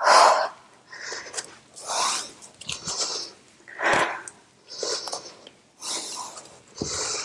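A woman's forceful breaths, about one hissing exhale a second, as she works through a repeated plank and leg-reach exercise. A couple of soft low knocks come in, one about halfway through and one near the end.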